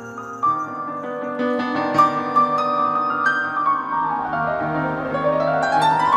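Piano playing slow worship music: held bass notes under chords, with a run of notes that sweeps down and then climbs back up in the second half.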